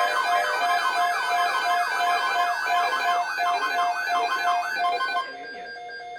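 Siren-like emergency alert tone from a broadcast Emergency Alert System warning, rapidly sweeping up and down several times a second over a pulsing beep. The sweeping cuts off about five seconds in, leaving quieter beeping.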